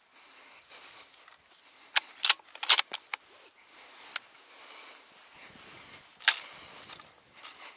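Sharp clicks and knocks of a scoped rifle being handled on its shooting sticks: a quick cluster of clicks about two seconds in, a single click at about four seconds, and a last, louder knock a little past six seconds.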